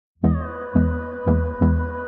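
Background music starts about a quarter second in: electronic pop with a bass note struck about twice a second under sustained synthesizer tones.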